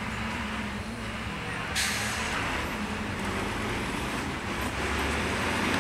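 Diesel engine of a stopped bus idling steadily with a low hum, and a sudden sharp hiss of air about two seconds in.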